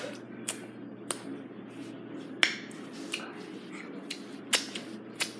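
Sharp, wet mouth smacks of fingers being licked and sucked clean while eating, about eight at uneven intervals.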